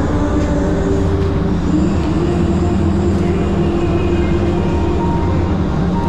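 Loud steady droning hum of the cooling and air-handling units in an indoor snow hall, with a strong low rumble and a few held tones over it.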